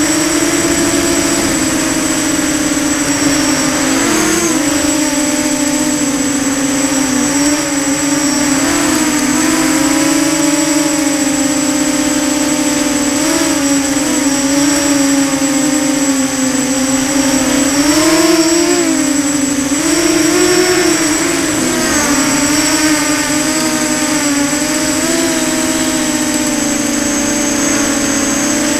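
Electric motors and propellers of a small radio-controlled aircraft, heard close up from its onboard camera: a continuous buzzing whine whose pitch rises and dips several times with the throttle, over a faint constant high whine.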